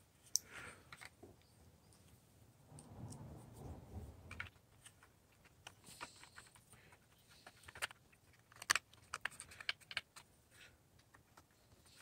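Faint, scattered clicks and taps of small plastic and metal parts being handled, as a shield is fitted back over the transformer inside an Emerson clock radio and wires are tucked into its case. A soft rubbing sound is heard for a couple of seconds about three seconds in.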